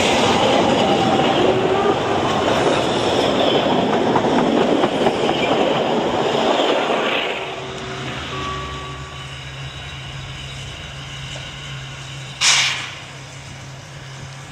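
Narrow-gauge steam train's carriages rolling past close by, a loud dense rumble and clatter of wheels on the rails. About seven seconds in it drops to a quieter steady low hum, with one short sharp burst of noise near the end.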